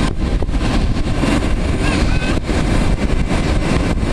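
Steady jet engine noise from an Airbus A321 airliner, mixed with wind buffeting the microphone.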